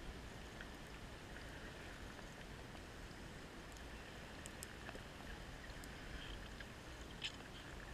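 Underwater ambience picked up by a camera in its housing: a faint, steady hiss with a low rumble and a few scattered faint clicks, one a little louder near the end.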